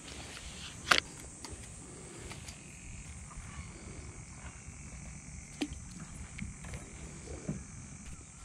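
Plastic pouch of mysid shrimp bait being squeezed, with a wet squelching sound. There is a sharp click about a second in, then a few faint ticks, over a low steady hiss.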